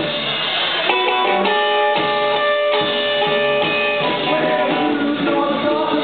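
Live rock band playing: guitar chords ringing and changing about once a second over bass guitar.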